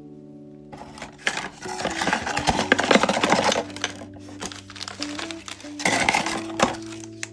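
Blind-box packaging crinkling and rustling as it is handled and opened, in two bouts: a longer one starting about a second in and a shorter one near the end. Background music plays throughout.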